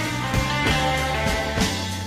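Music with a steady beat, about three strikes a second, over held bass notes.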